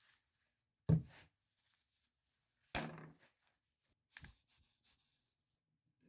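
Three separate knocks of objects being handled and set down on a work surface, about a second and a half to two seconds apart. The first is the loudest, and a few light clicks follow the last.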